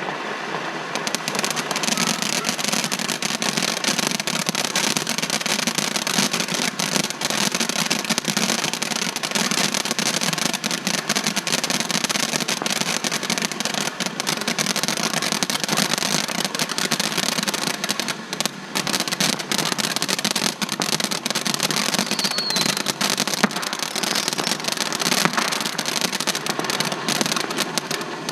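Fireworks crackling in a dense, rapid, continuous popping that starts about a second in, with a brief lull about two-thirds of the way through.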